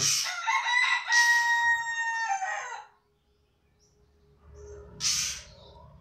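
A rooster crowing once, a loud call of nearly three seconds with a held note that falls off at the end. About five seconds in there is a short, harsh squawk.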